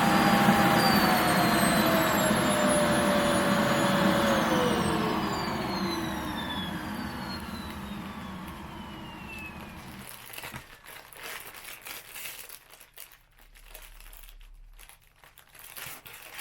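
Vacuum cleaner drawing the air out of a plastic futon compression bag. Its motor whine steps down in pitch twice and slowly fades, which the owner takes for the vacuum dropping from strong to weak on its own, then stops about ten seconds in. After that, plastic crinkles.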